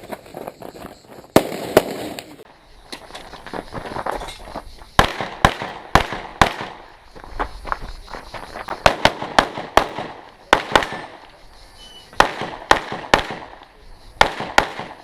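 Handgun shots fired in quick pairs and short strings, with pauses of a second or two between groups, in the rhythm of a competitor shooting a practical-shooting course of fire.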